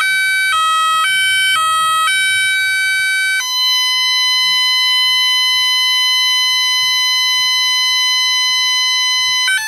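Texecom intruder alarm's exit tone while the system sets. A loud two-pitch warble switches about every half second, then changes a few seconds in to one steady continuous tone as the keypad shows 'Exit Now'. The steady tone cuts off near the end.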